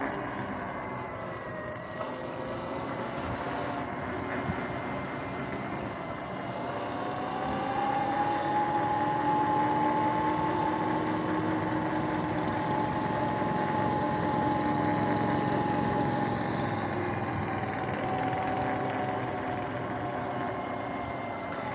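Sur-Ron X electric dirt bike running, its motor and chain drive whining, with tyre and wind noise underneath; the chain is freshly fitted. The whine rises in pitch about seven seconds in as the bike speeds up, holds steady, then falls away near the end as it slows.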